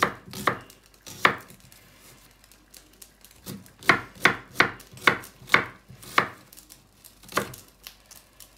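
Kitchen knife chopping red onion on a bamboo cutting board: sharp separate knocks of the blade on the board, a few at first, then after a short pause a quick run of about six strokes, then two more spaced out.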